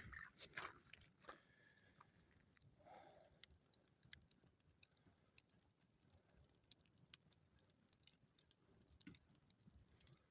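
Near silence with a campfire crackling faintly: scattered small, irregular pops and clicks, a few louder ones in the first second or so.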